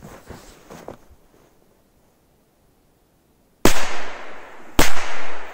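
A two-bang Tropic firecracker lying on snow goes off: two sharp bangs about a second apart, each with a short echoing tail.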